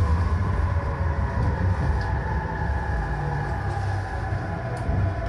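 Inside an E531-series electric train: the traction motors whine in several tones that slowly fall in pitch as the train brakes into a station, over a low rumble from the running gear.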